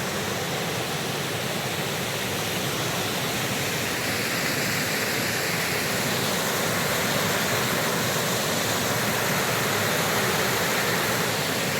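Wagner Falls, a small forest waterfall, heard from its top: a steady rush of falling water that grows slightly louder in the second half.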